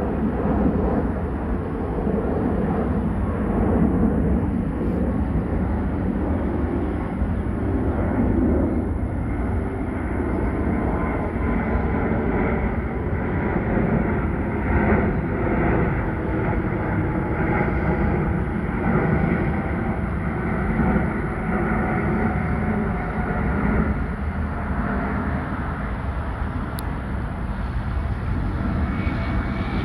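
Airbus A350 turbofan engines climbing out after takeoff: a steady, continuous jet engine noise with faint tones drifting slowly in pitch as the airliner passes overhead.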